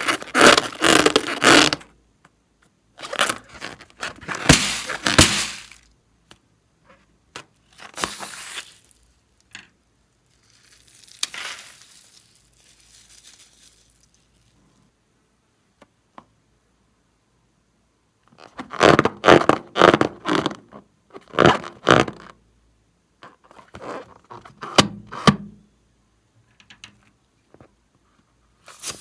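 Slime and its ingredients being handled and mixed by hand, giving bursts of scraping, squishing and crackling a second or two long, separated by quiet gaps.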